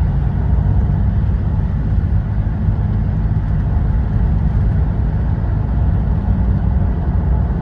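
Steady low rumble of tyre and engine noise heard inside the cabin of a moving car.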